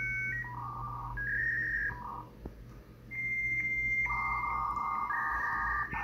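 Electronic beeping tones, like a telephone keypad or computer data sound: steady tones, often two at once, each held for half a second to a couple of seconds before switching to a new pitch.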